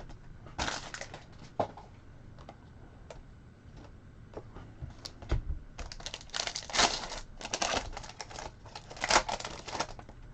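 Trading cards being handled and flipped through by hand: light clicks, slides and crinkling, sparse at first and busier in the second half.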